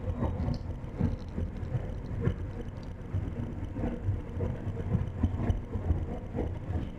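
Moving city bus heard from inside: a steady low engine and road rumble, with scattered short knocks from the bus body.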